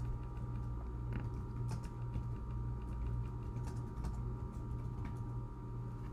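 A felt-tip marker drawing on paper, heard as scattered light ticks and scratches of the tip, over a steady low electrical hum with a faint high whine.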